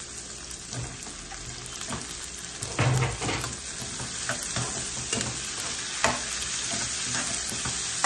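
Shallots, garlic and green chillies sizzling in hot oil in a non-stick wok, with a louder burst a little under three seconds in as chopped tomatoes go in, then a spatula stirring and knocking against the pan.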